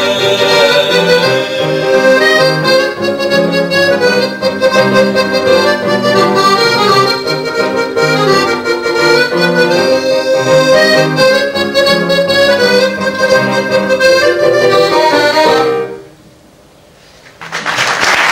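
Chromatic accordion with piano playing the closing instrumental bars of a song, ending about 16 s in. After a short pause, audience applause starts near the end.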